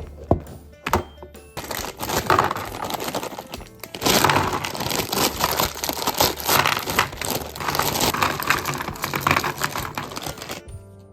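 Plastic packaging crinkling and rustling as it is handled, with a few sharp clicks in the first second or so and louder crinkling from about four seconds in, over background music.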